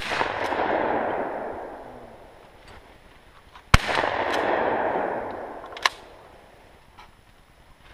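Two gunshots from a shoulder-fired long gun about four seconds apart, each followed by a long rolling echo that dies away over about two seconds. A shorter, sharp click comes about two seconds after the second shot.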